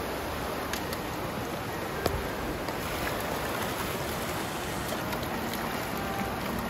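Shallow river water rushing steadily over stones, with a single brief knock about two seconds in.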